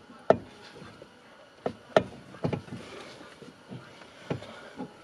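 Several sharp, irregularly spaced metallic clunks and knocks as the replacement steering column shaft in a Fiat 500 is worked into place under the dashboard by hand.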